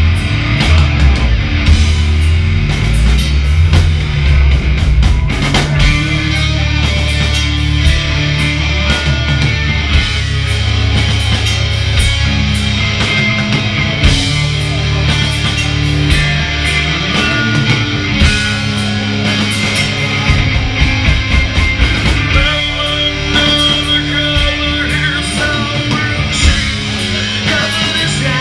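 Hard rock band playing live: electric guitars over steady bass notes and frequent drum hits.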